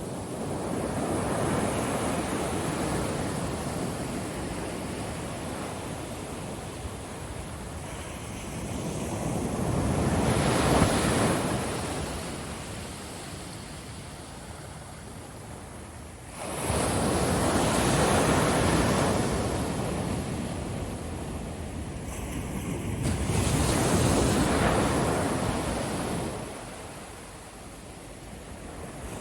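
Ocean surf breaking on a beach: the wash of waves swells and ebbs four times, one wave coming in abruptly about halfway through.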